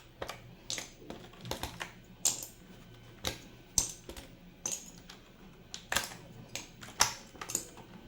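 Sharp plastic clicks and clacks at irregular intervals, roughly two a second, as keycaps are pulled off a mechanical keyboard one after another.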